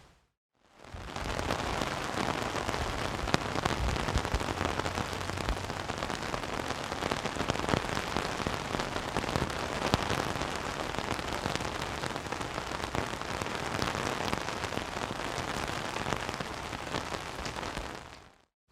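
Steady rain falling, with drops pattering on a surface as a dense even hiss flecked with fine ticks. It fades in after a moment of silence and fades out near the end.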